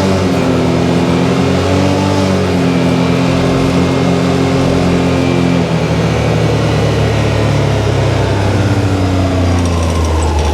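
Can-Am Maverick X3 DS Turbo side-by-side's turbocharged three-cylinder engine running under way. Its pitch drops right at the start and again about six seconds in, then climbs again near the end.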